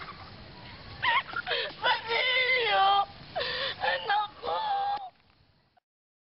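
A woman calling out for her children in several drawn-out cries, her pitch sliding up and down. The cries stop about five seconds in.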